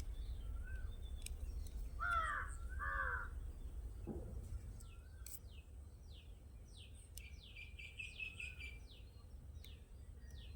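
A crow caws twice about two seconds in. Later comes a quick run of short, falling chirps from small birds, over a steady low hum.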